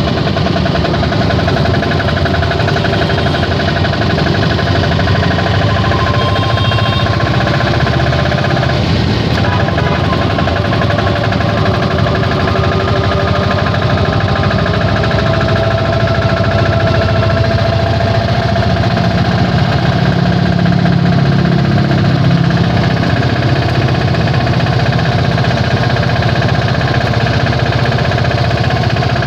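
Indian auto rickshaw's engine running with a rapid, steady chugging rattle; its pitch wavers a little past the middle.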